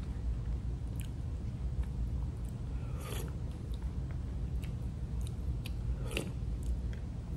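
Someone eating oatmeal: a plastic spoon scrapes and clicks against a plastic tub, with two louder short scrapes or mouth sounds about three and six seconds in as spoonfuls are taken, over a steady low rumble.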